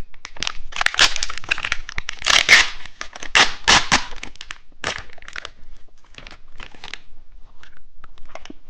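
Plastic wrapper of a two-colour cheese stick being torn open and crinkled: a run of sharp crackles, busiest in the first few seconds and thinning out after.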